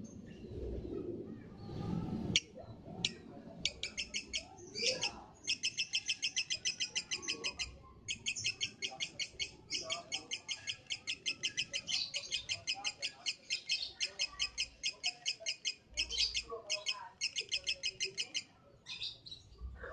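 Lovebird singing a long, fast chattering trill of rapid repeated high notes, about six a second, in long runs broken by short pauses: the drawn-out 'ngekek' song of a lovebird. The trill starts a few seconds in.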